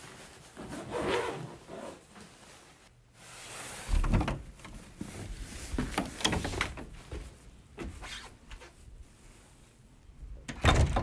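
A hard-shell suitcase being handled, with a short sliding rub, followed by a string of knocks and footfalls on a wooden deck and one louder knock near the end.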